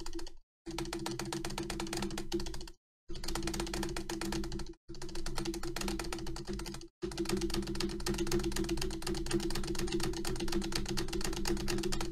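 Spacebar of an Acer computer keyboard pressed very fast and without pause, about seven clicks a second. The sound drops out to dead silence for a split second four times.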